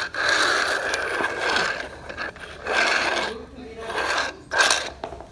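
Toy car's wheels and gearing whirring and scraping in about four short back-and-forth bursts, the first one the longest.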